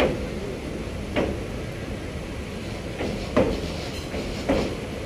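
Passenger train running slowly: a steady rumble with a sharp wheel clack about once a second as the wheels cross rail joints.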